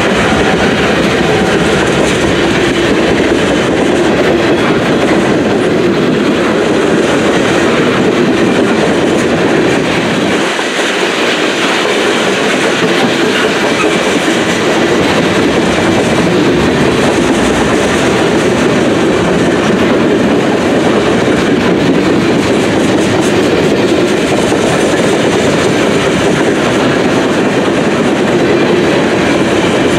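Freight cars of a long mixed freight train, boxcars and centerbeam lumber flatcars, rolling past close by: a loud, steady noise of steel wheels running on the rails.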